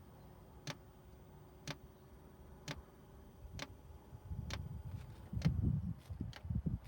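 Fuel dosing pump of a 5 kW Chinese diesel air heater ticking about once a second as it primes fuel at start-up. A low rumbling noise builds in the second half.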